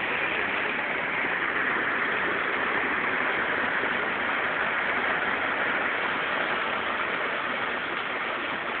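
Heavy rain pouring down in a steady, even hiss of water.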